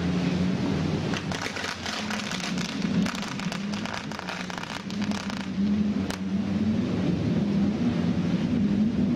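Rapid crackling of firecrackers set off at the ship launch, starting about a second in and stopping after about five and a half seconds, with one last sharp snap just after. Under it a steady low drone runs throughout.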